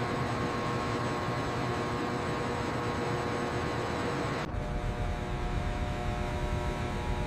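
Steady machine noise: a hiss with several steady hum tones, which cuts abruptly about four and a half seconds in to a deeper rumble with a hum.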